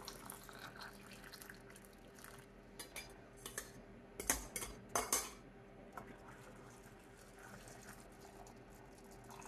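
A stainless steel canning funnel and glass mason jars clinking and knocking as the funnel is lifted off a filled jar and the jars are set together: a few sharp clinks, the loudest about four and five seconds in. A faint trickle of hot water being poured into a jar at the start.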